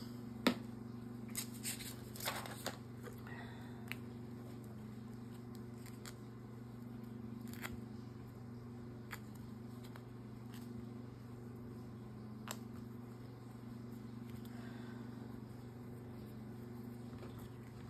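Paper and card being handled and pressed down while gluing: a few light taps and rustles scattered through, the sharpest about half a second in, over a steady low hum.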